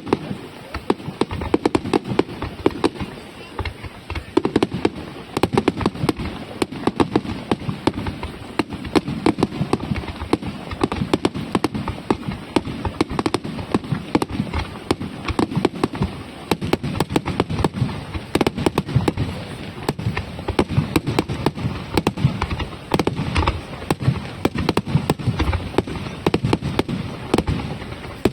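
Fireworks display in a rapid barrage: a dense, continuous string of sharp bangs and crackles, several a second, without a break.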